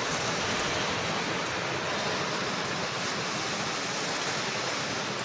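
Steady, even rushing hiss of factory background noise, with no distinct knocks or clicks.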